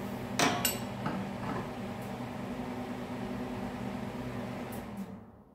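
Steady mechanical hum, as of a shop fan or compressor, with a single sharp knock about half a second in; the hum fades out near the end.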